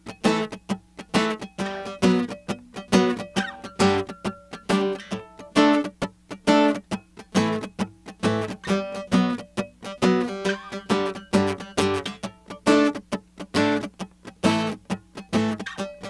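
Tagima California acoustic guitar strummed in a steady rhythm, chord strokes coming about two to three a second with the notes ringing between them.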